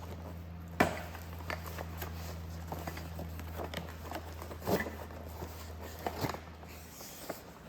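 Cardboard shipping box being opened and handled: scattered rustles and sharp clicks, the sharpest a snap about a second in, over a low steady hum that stops about seven seconds in.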